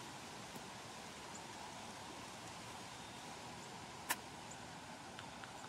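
Steady faint outdoor hiss with one sharp click about four seconds in: a golf club striking against the ball or turf.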